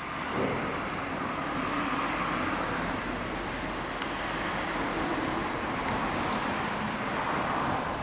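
Steady motor-vehicle noise, a continuous rumble and rush that swells a little twice.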